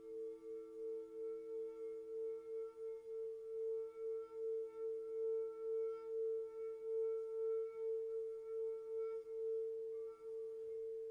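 Crystal singing bowls sounding together: two steady, pure tones, one higher and one lower, with a wavering pulse of about three or four beats a second.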